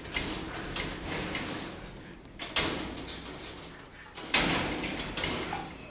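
Metal kennel gate rattling and clanking as a dog leans and paws against it on its hind legs. Several sharp clanks, the loudest about two and a half and four and a half seconds in, each trailing off in a rattle.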